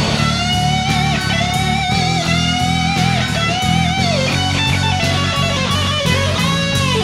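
Rock band playing an instrumental passage: an electric lead guitar plays a melody with bent and wavering notes over steady drums, bass guitar and rhythm guitar.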